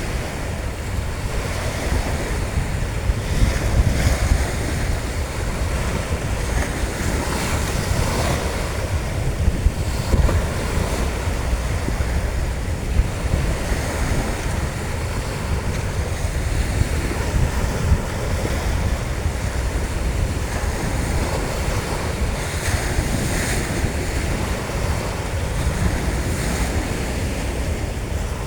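Sea waves washing onto a beach, a steady surf rush that swells and falls, with wind buffeting the microphone as a low rumble.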